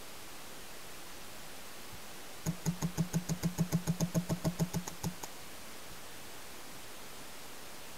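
Paintball marker firing a rapid string of about fifteen shots, roughly six a second, for under three seconds, over a steady hiss.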